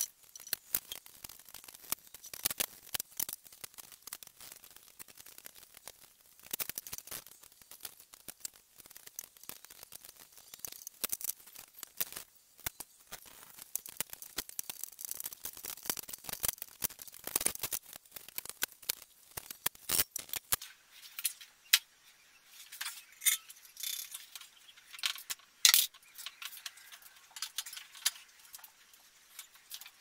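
Fat bike being assembled by hand: many quick clicks, clinks and rattles of metal parts and tools being handled, with a frequent irregular rhythm and no steady machine sound.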